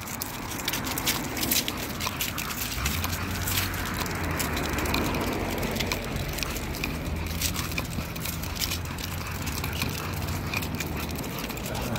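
Footsteps and a dog's paws crunching and rustling over fallen leaves on pavement during a leashed walk, with many small crackles throughout. A low steady hum comes in about three seconds in and fades near the end.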